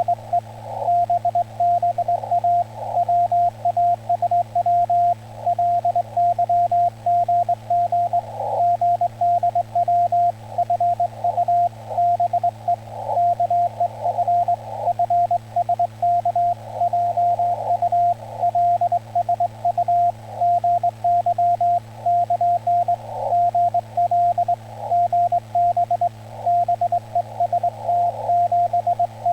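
Ham radio CW: a single steady-pitched tone keyed on and off in continuous dots and dashes, sending Morse code in Korean Hangul. A steady low hum runs underneath.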